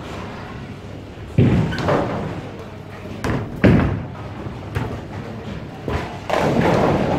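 Bowling pins crashing as a ball strikes them, about a second and a half in. A second bowling ball then thuds onto the lane at release and rolls, crashing into the pins near the end. Lighter knocks and clatter come in between.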